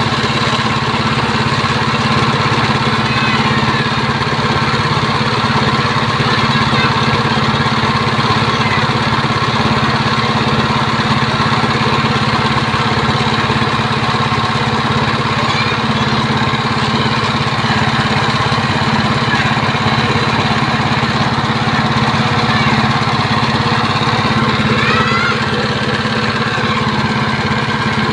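Small petrol engine of a snow-foam washing machine, fitted with a Honda GX160 carburetor, running steadily at an even speed.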